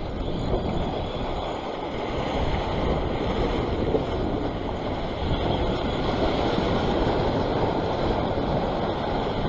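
Sea waves washing over shoreline rocks, with wind on the microphone: a steady rushing that grows a little louder about two seconds in.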